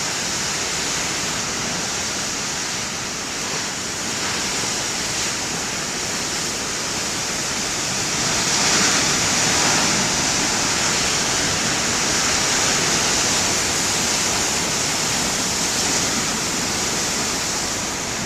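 Large ocean waves breaking in heavy surf: a steady rushing hiss of churning whitewater that swells louder about eight seconds in as a wave breaks.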